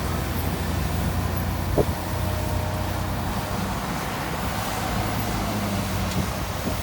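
Heavy diesel engine of an earthmoving machine running steadily, with one short sharp metallic knock a little under two seconds in.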